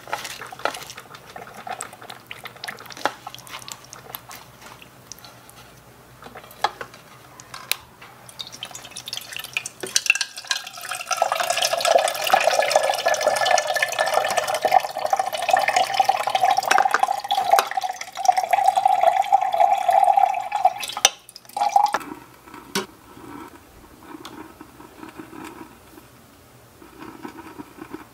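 Hands handling wet cabbage in a small plastic colander bowl, with light clicks and knocks. About ten seconds in, water from a miniature kitchen tap starts pouring through the colander into the sink, a steady splashing stream with a steady tone in it, and it cuts off suddenly about twenty-one seconds in.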